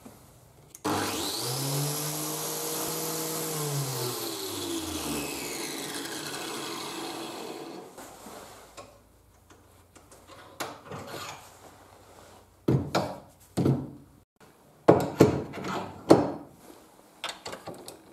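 An electric power tool motor starts abruptly and runs at a steady pitch for a few seconds, then coasts down with a falling whine over several seconds. It is followed by a series of short, sharp working noises, about eight in all.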